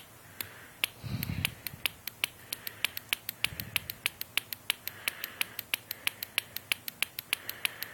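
Push button on a breadboard counter circuit being pressed over and over, a run of sharp clicks that speeds up from about two to about four or five a second. Two short low murmurs come about a second in and again about three and a half seconds in.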